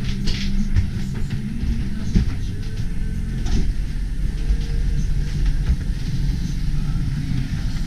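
Steady low rumble of a sailing yacht under way, heard from inside its cabin, with scattered knocks and clicks.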